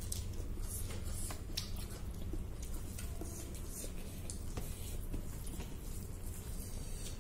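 Close-up eating sounds: fingers squishing rice and pork curry on a plate, with scattered small wet smacks and chewing, over a steady low hum.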